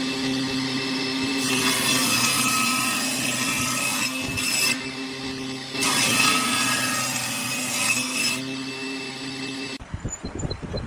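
Table saw running with a steady motor and blade hum, cutting through pine blocks twice, each cut adding a loud, harsh rasp that lasts two to three seconds. Near the end the saw's hum stops suddenly and irregular knocking and rattling follow.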